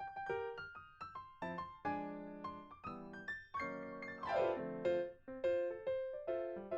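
Background music: a light, bouncy piano tune played note by note, with a quick downward run of notes about four seconds in.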